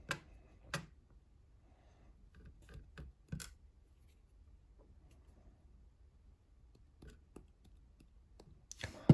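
Small lock parts being handled on a work surface: a few scattered light clicks and taps as the top pins are taken out of the gutted lock, with a cluster about three seconds in.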